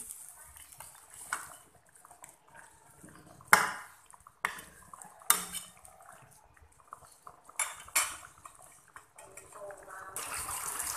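A metal spatula scraping and clanking against a non-stick wok as chicken pieces are stirred through a simmering sauce, with about six sharp knocks spread out, the loudest about three and a half seconds in. Near the end a steady hiss of the sauce bubbling down begins.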